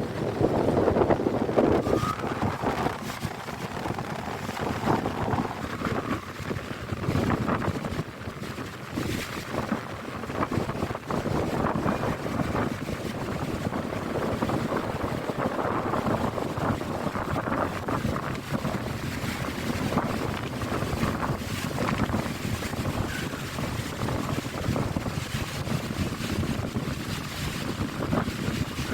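Wind gusting and buffeting the microphone, an uneven rumbling rush.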